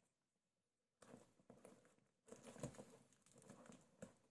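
Faint rustling and scraping of fingers tugging at a plastic packing strap around a cardboard box, starting about a second in, with a small sharp click near the end.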